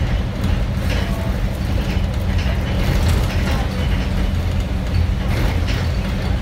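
Scania K230UB bus's five-cylinder diesel engine running steadily under way, heard from inside the saloon, with road noise and interior fittings rattling and clicking now and then.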